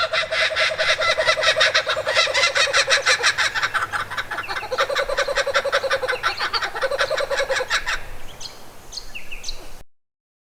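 A loud chorus of birds calling in a rapid chatter of quick repeated notes, dipping and building again twice. Near the end come a few short, high, falling chirps before the sound cuts off abruptly.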